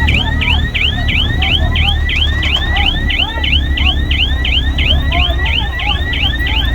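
A warning alarm sounding a rapidly repeating dip-and-rise sweep, about four a second, over the low running of heavy diesel machinery.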